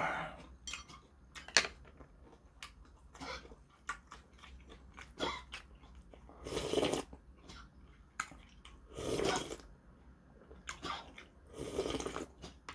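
A person eating: chewing and small mouth clicks, then slurping soup straight from the rim of a bowl in three long slurps, about six and a half, nine and twelve seconds in.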